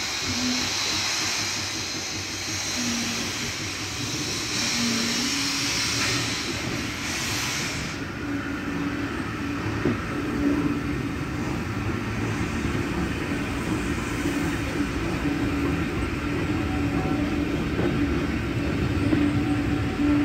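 Steam-hauled train moving along the track, heard from a carriage: a steady rumble of the coaches running on the rails, with a strong hiss that cuts off about eight seconds in.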